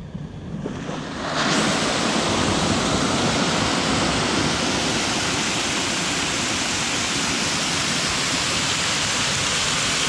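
Waterfall pouring down a rock face into a pool: a steady rush of falling water that swells sharply about a second and a half in, then holds.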